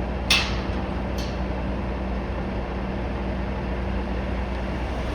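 Mobile crane's diesel engine running steadily during a heavy lift. There is a short, loud hiss about a third of a second in and a fainter one about a second in.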